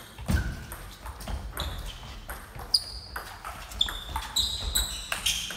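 Table tennis rally in a sports hall: a quick, irregular series of paddle hits and the ball pinging on the table, with shoes shuffling and squeaking on the floor.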